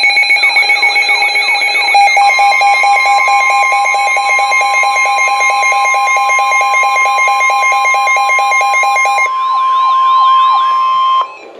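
Weather radio alert tones: several electronic alarm sounds layered together, a fast pulsing beep and repeating downward-sweeping chirps. About two seconds in, a steady high tone joins them; this is the 1050 Hz NOAA Weather Radio warning alarm that comes before a warning message. The beeping stops a couple of seconds before the end, and the steady tone cuts off about a second before it.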